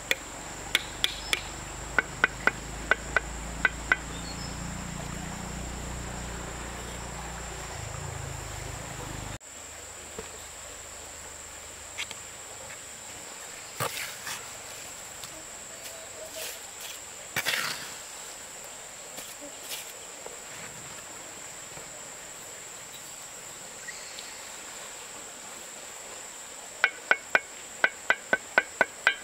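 A steady high-pitched insect drone. Over it come runs of sharp, evenly spaced knocks, about three a second, near the start and again near the end, with a few single knocks between. A low rumble cuts off suddenly about a third of the way in.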